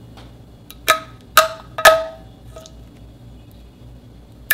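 Glossy slime being poked and pressed with fingers: three sharp, loud pops about half a second apart, each with a short ringing tail, starting about a second in.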